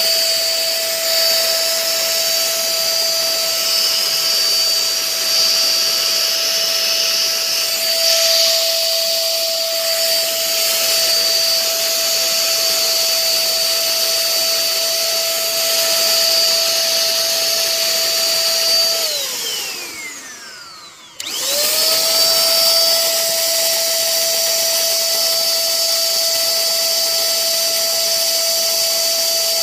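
A small electric motor runs with a steady high whine. It winds down about nineteen seconds in and stops for a moment. About two seconds later it starts again, quickly spinning back up to the same pitch, and winds down once more near the end.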